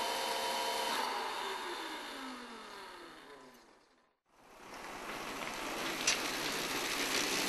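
Home-built GR-5A twin-shaft turboshaft gas turbine winding down after fuel cut-off: a steady whine that falls in pitch and fades out about four seconds in. After that, a steady rushing noise with no tone.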